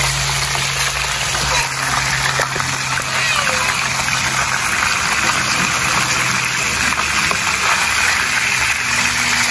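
Oil sizzling steadily around whole red snappers frying in a wide pan, with metal tongs and a spatula knocking and scraping against the fish and pan as they are moved.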